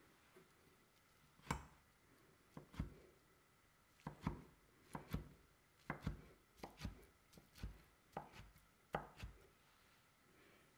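A cleaver-style kitchen knife slices through a rolled egg crepe and knocks on a wooden cutting board. It makes a string of irregular chops, often in quick pairs, beginning about a second and a half in and stopping near the end.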